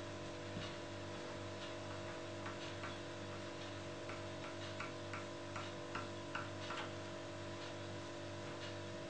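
Light, irregular clicks and taps, bunched together around the middle, as a small die-cut paper piece is rubbed with a tissue and handled on a plastic cutting mat. A steady low electrical hum runs underneath.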